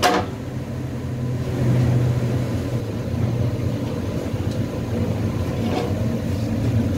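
A steady low engine-like hum running throughout, swelling slightly about two seconds in, with a brief click right at the start.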